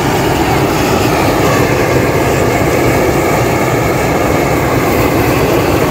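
Steady rushing noise of gas torches blowing hot air into a large paper Cantoya balloon as it is inflated for launch.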